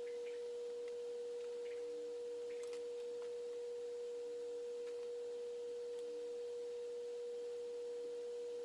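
A steady, unchanging pure tone, with a few faint clicks.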